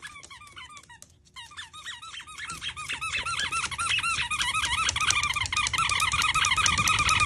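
Plastic toilet seat squeaking as a dog rocks and pushes on it over carpet: a rapid run of short, high squeaks, each rising and falling in pitch, sparse at first, then several a second and louder from about three seconds in.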